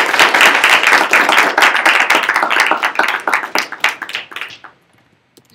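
Audience clapping, dense and loud, thinning out and stopping about four and a half seconds in.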